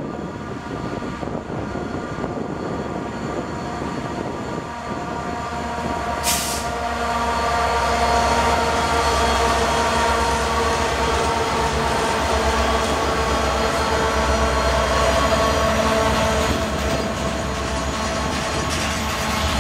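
Two diesel freight locomotives approach and pass close by, their engines growing louder and peaking about eight to sixteen seconds in, then covered hopper cars rolling past. A brief hiss about six seconds in.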